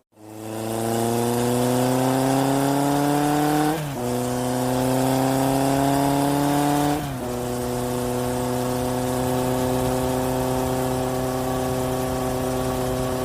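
Motorcycle engine accelerating: its pitch climbs, drops at a gear change about four seconds in, climbs again, drops at a second shift about seven seconds in, then holds steady at cruising speed.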